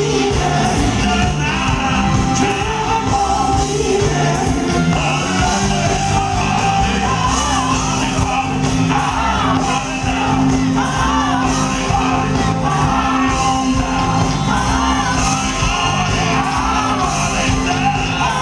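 Live R&B vocal group singing lead and backing vocals over a band of keyboards, bass guitar and drums with a steady beat, heard through the PA from the audience.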